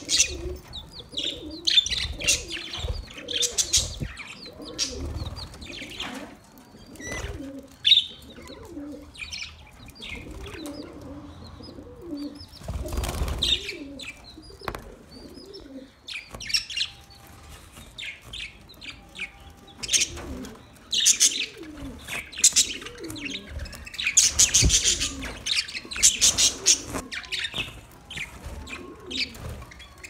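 A flock of budgerigars chirping and chattering in quick, busy high calls, with a low cooing underneath and now and then a louder flutter.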